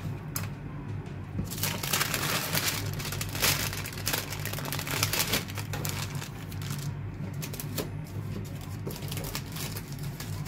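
Small treat bags crinkling as pieces of homemade chocolate are packed into them with tongs, densest in the first half and sparser later, over quiet background music.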